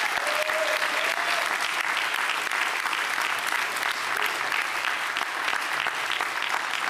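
Crowd applauding steadily: many hands clapping at once.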